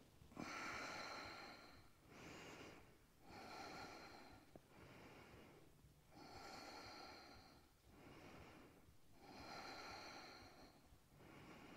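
A woman's faint, steady breathing in and out, about four slow breath cycles, while she holds a side plank.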